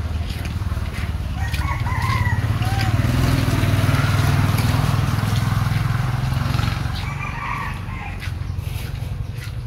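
A rooster crowing, heard about two seconds in and again near seven seconds, over a low rumble that swells and then fades. Footsteps tick through it.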